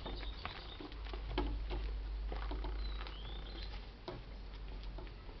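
Light pattering footsteps and scattered small ticks on a concrete yard, with a couple of faint short high chirps about halfway through.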